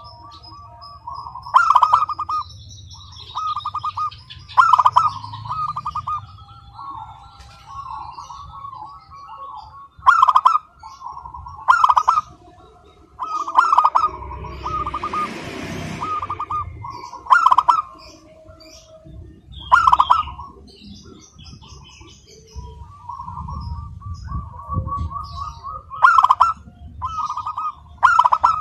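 Zebra dove (perkutut) singing: phrases of rapid staccato cooing notes, with a loud phrase every two to three seconds and softer cooing in between. A brief rush of noise comes about halfway through.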